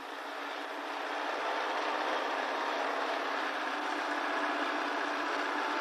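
A farm tractor's engine running steadily as it hauls a train of loaded cane wagons, growing a little louder over the first second as it approaches.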